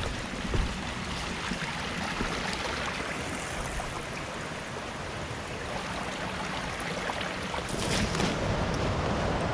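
Steady rush of a fast-flowing creek, growing a little louder near the end, with a couple of brief knocks.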